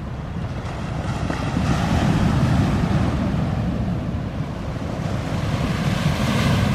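Wind buffeting the microphone with a low rumble, over surf washing on the shore; the wash swells twice, about two seconds in and near the end.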